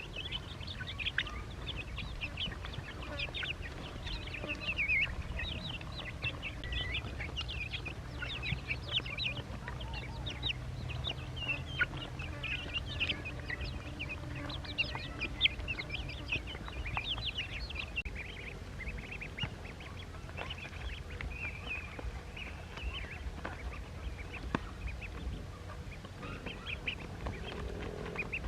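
A group of ducklings peeping, many short high-pitched calls overlapping, thinning out about two-thirds of the way through.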